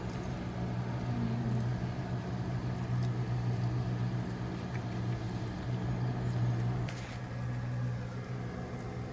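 A steady low mechanical hum, a running motor or fan, with a little faint clatter over it.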